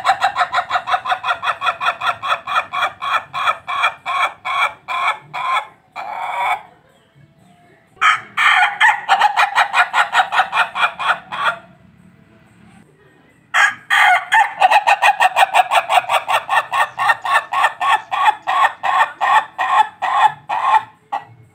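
Ayam ketawa (laughing chicken) rooster crowing in long runs of rapid, evenly repeated syllables, about three or four a second, that sound like laughter. There are three bouts, with short pauses about six and twelve seconds in.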